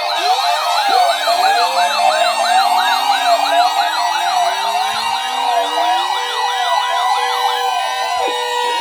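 Many sirens sounding together: overlapping rising-and-falling wails and quicker repeating sweeps at different rates. Just after the start, several more sirens wind up from a low pitch and climb slowly over the next few seconds.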